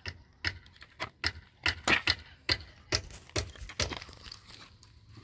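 Sharp metal-on-wood clicks and knocks, about a dozen at irregular intervals, from pliers working nails out of old wooden planks. They stop about four seconds in.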